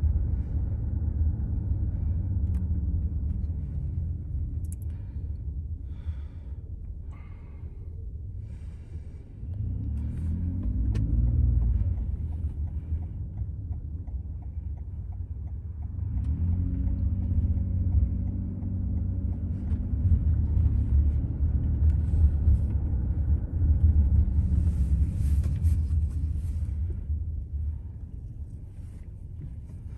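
Car driving through city streets, heard from inside the cabin: a steady low rumble of road and engine noise. The engine note rises twice as the car picks up speed, about ten seconds in and again past the halfway point.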